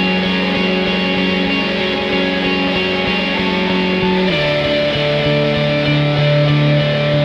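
Background music: sustained guitar chords over a steady beat, the chord changing about four seconds in.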